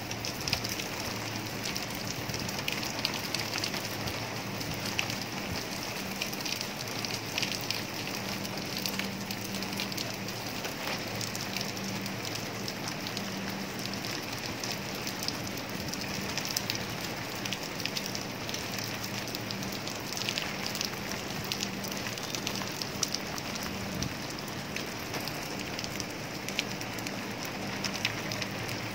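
Steady rain falling on paving and standing water, with many sharp drop ticks through it, over a low steady hum.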